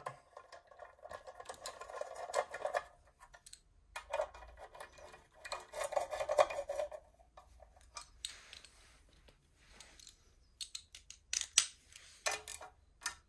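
Ratchet wrench tightening small 8 mm nuts on an engine's timing belt cover: two runs of fast ratcheting clicks in the first half, then scattered single metallic clicks.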